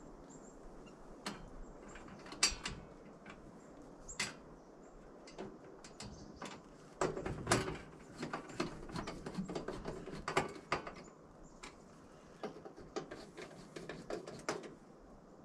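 Irregular small metal clicks and scrapes from a hand screwdriver fastening the metal front cover of a breaker panel, with a louder cluster about halfway through.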